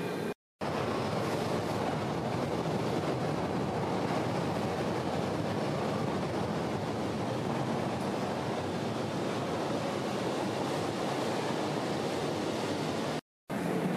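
Steady rushing ambience of a subway station hall, with no voices standing out. It drops out to dead silence twice, briefly just after the start and again near the end.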